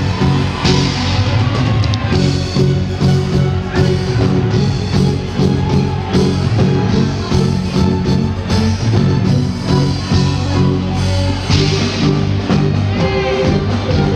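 Loud live reggae concert music with a heavy, steady bass line.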